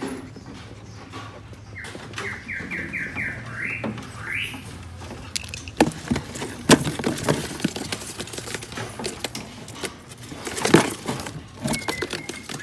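A small songbird gives a quick run of about six rising chirps, then clicks, knocks and rustling follow as birds are handled and flutter against a cage or box, loudest near the end, with one more short chirp at the very end.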